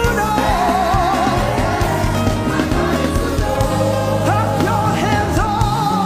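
Gospel praise and worship music: a singing voice with vibrato over a band with steady bass and keyboard chords.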